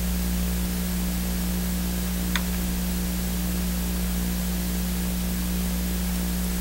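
Steady hiss with a low electrical hum: the background noise of the recording setup's microphone. One faint click about two seconds in.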